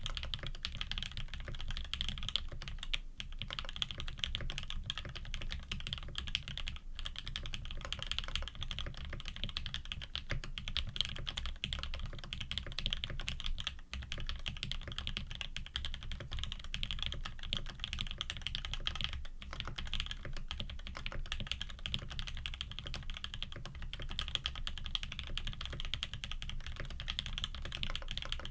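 Continuous fast typing on a custom Frog TKL mechanical keyboard with lubed Tangerine linear switches, an aluminium plate and GMK keycaps: a steady stream of key clacks with a few brief pauses.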